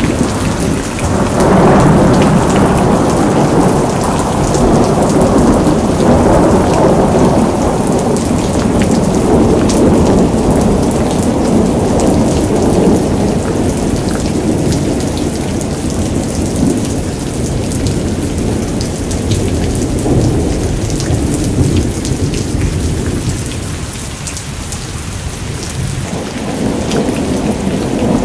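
Hailstorm: heavy rain and hail pelting down, with many sharp ticks of hits, under a long rolling rumble of thunder. The thunder swells about two seconds in and eases near the end.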